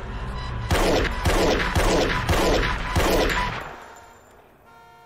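Five pistol shots about half a second apart, each with an echoing tail, in a film gunfight.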